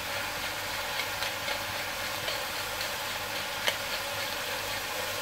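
Chopped vegetables sizzling steadily in hot olive oil in a stainless-steel stockpot, with a few faint clicks of a pepper mill grinding black pepper over them.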